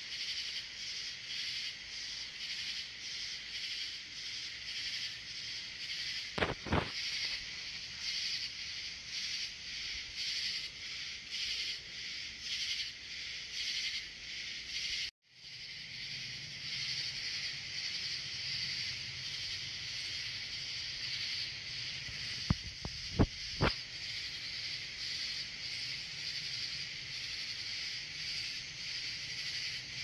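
Katydids calling at night: a high, rasping call that pulses in a steady rhythm a little more than once a second. Sharp knocks come once about six seconds in and a few more about three-quarters of the way through.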